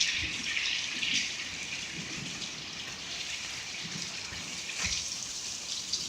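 Steady rain falling, an even hiss, with a few faint knocks.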